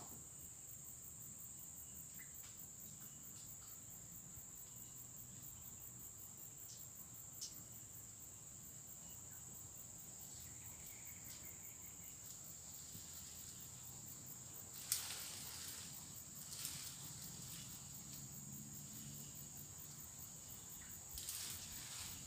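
Faint, steady high-pitched buzzing trill of insects, the daytime chorus of crickets or cicadas, with a few sharp clicks on top, the loudest about two-thirds of the way through.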